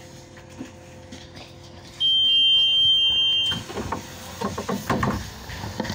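Door warning beep on a Solaris Urbino 18 III articulated city bus: a loud electronic tone lasting about a second and a half, a steady high note with a slightly lower note pulsing twice, sounding about two seconds in over the steady hum of the bus. Irregular clattering and knocking follow it.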